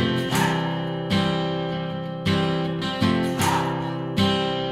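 Background music: an instrumental stretch of a song, acoustic guitar strumming chords with a strong strum about once a second.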